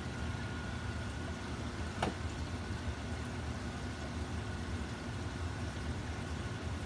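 Steady low hum and hiss of running aquarium equipment, pumps and aeration in a fish room full of tanks, with a faint steady tone over it. A single sharp click about two seconds in.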